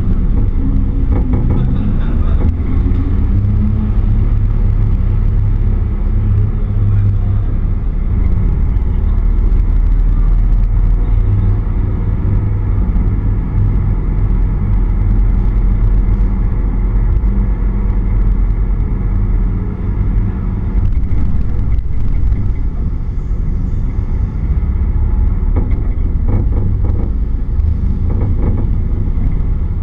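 A car's engine running at low speed as the car rolls through an underground car park, a steady deep engine note.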